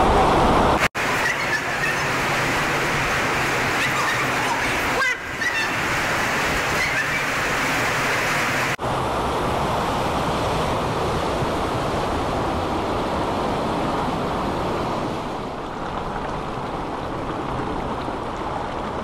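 A tiny mountain creek rushing steadily, a dense hiss of running water. It is broken by brief gaps about a second in, near five seconds and near nine seconds.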